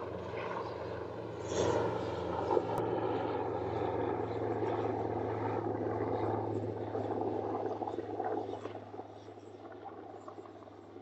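A huge Air Force plane, taken for a C-130, passing overhead: a steady drone with a deep hum, loudest in the middle and fading away over the last few seconds. Two short knocks sound about two seconds in.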